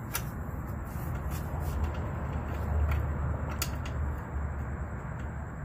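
A few faint, sharp clicks of small metal parts being handled as a motorcycle turn signal's mounting nut is threaded on by hand, over a steady low rumble that swells slightly in the middle.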